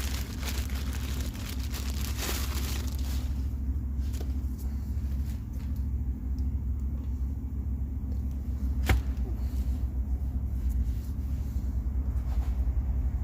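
A steady low hum, with light clicks of metal parts being handled and one sharp knock about nine seconds in.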